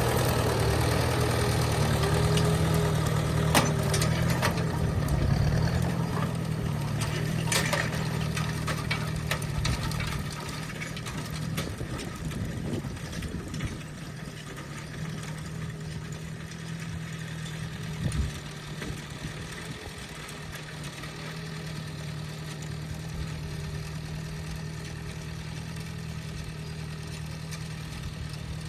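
Ford 860 tractor engine running steadily, a few sharp knocks in the first eight seconds, then quieter after about ten seconds.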